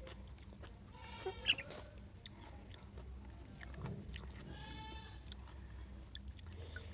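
A farm animal bleating twice: two calls, each about a second long, the first about a second in and the second near the middle.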